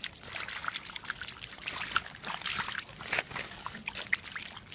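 Water splashing and dribbling in many small, irregular splashes.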